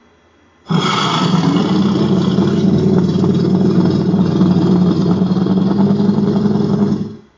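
Made-up kaiju sound effect: one long, loud, rough, steady sound with a deep rumbling core. It starts suddenly just under a second in, holds for about six seconds, and then drops off.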